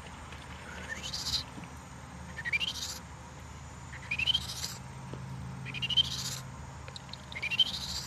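A man's mouth imitation of a Western chorus frog call: a whistle with a uvula trill, rising in pitch. It is repeated five times, each call under a second long, about every second and a half.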